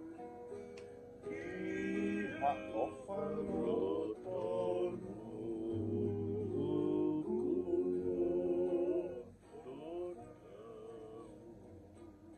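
Male voices singing a song together over strummed acoustic guitar and ukulele. The singing comes in about a second in and drops away near the end, leaving the strummed strings.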